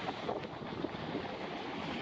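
Sea surf washing and foaming over rocks at the water's edge, a steady crackling rush, with wind buffeting the microphone.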